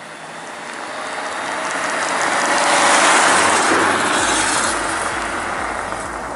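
Rushing road and wind noise of a car driving on a snow-covered road, swelling to its loudest about three seconds in and then easing off, with a low steady hum coming in after about four seconds.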